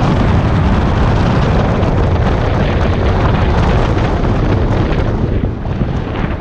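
Wind buffeting the microphone of a camera in a moving car, a loud, steady rumble mixed with road noise. It eases a little near the end as the car slows.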